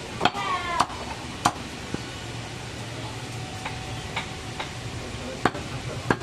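A butcher's blade knocking on a wooden log chopping block as goat meat is cut: three sharp knocks in the first second and a half, a quieter stretch, then two more near the end.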